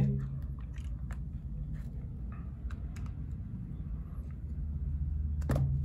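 Scattered light clicks and taps of a clear plastic phone case being pressed and snapped onto an iPhone 12, over a low steady hum.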